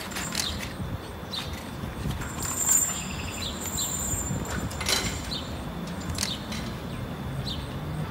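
Street ambience: a steady hum of traffic with short high bird chirps and a few sharp clicks and knocks, one a squeak about two and a half seconds in.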